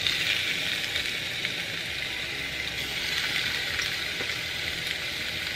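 Raw chicken breasts sizzling on a smoking-hot, lightly oiled cast-iron grill pan as they are laid down with tongs. The sizzle starts sharply as a breast goes onto the pan, then holds as a steady high hiss.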